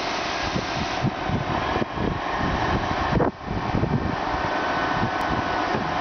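Pure-electric vacuum road sweeper running as it drives slowly: a steady fan-like rush from its vacuum unit, with uneven low rumbling underneath.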